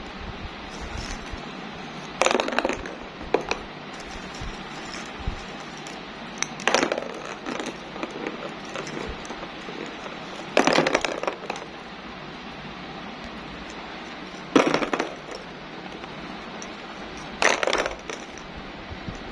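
Small hollow plastic ball-pit balls clattering as they roll and drop into a plastic tub: about half a dozen short rattling bursts of clicks a few seconds apart, over a steady faint hiss.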